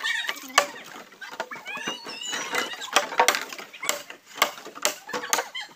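Green bamboo poles knocking and clattering against one another in quick, irregular knocks as they are handled and fitted into a raft.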